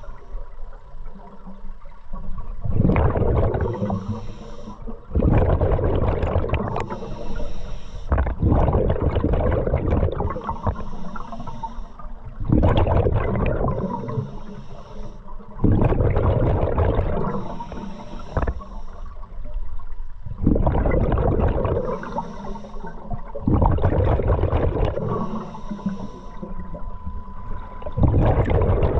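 Scuba diver breathing through a regulator underwater: a hiss on each inhale, then a long rush of exhaled bubbles. This repeats some eight times, every three to five seconds.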